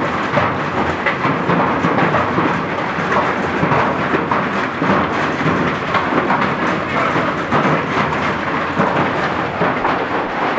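Heavy downpour with large hail: a dense, steady clatter of hailstones and rain pelting roofs and ground.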